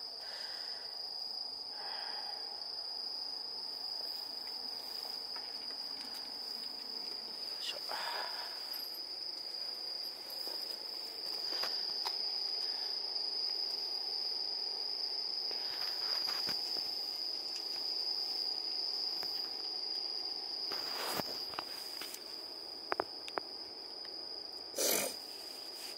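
Night insects singing in one unbroken, steady high-pitched trill. A few faint clicks and rustles come over it, the loudest near the end.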